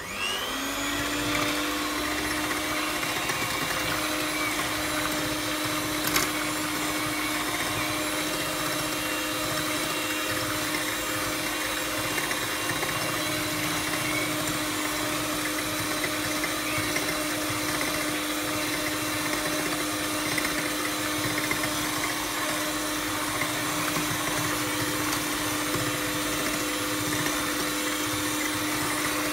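Electric hand mixer spinning up and then running steadily at one speed, its beaters whisking a runny egg, milk and oil batter in a bowl. One sharp click about six seconds in.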